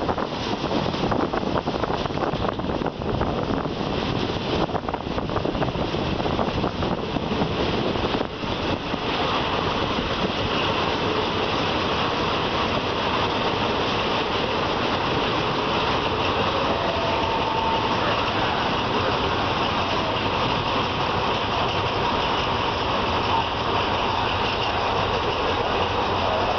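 Passenger train running noise heard from an open carriage window: rail rumble with wind buffeting and knocks for the first several seconds, then a smoother, even noise as the train runs slowly through a station.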